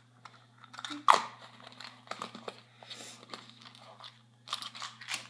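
Plastic tub and its lid being handled, with bobby pins and hair pins shifting inside: a string of light clicks and rattles, the loudest about a second in.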